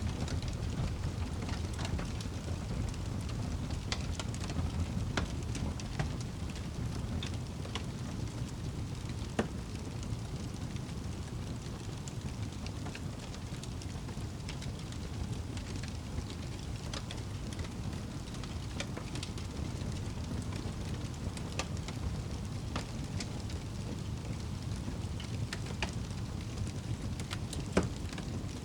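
Wood fire burning in a fireplace: a steady low rumble of flames with irregular sharp crackles and pops, one louder pop near the end.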